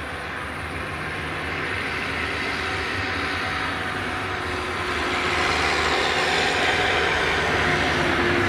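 A train approaching the level crossing, its running noise growing steadily louder, with a steady low tone coming in about halfway.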